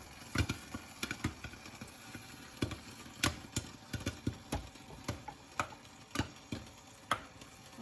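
Microwave popcorn kernels popping on the stovetop: sparse, irregular sharp pops, roughly two a second. The popping is thinning out near the end of the batch, the sign the popcorn is almost done.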